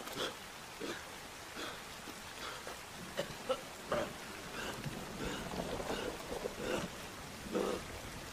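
Steady heavy rain falling on wet mud, with a few short louder sounds breaking through, the strongest about three to four seconds in and again near the end.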